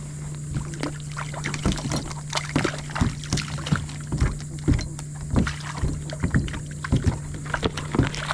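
Irregular sharp knocks and taps against a plastic kayak as a freshly caught catfish flops and is unhooked, over a steady low hum.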